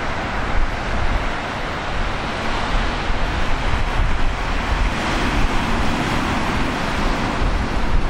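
Heavy typhoon surf breaking and washing against a breakwater and tetrapods, under strong storm wind that buffets the microphone with a deep rumble. The surf swells louder about five seconds in.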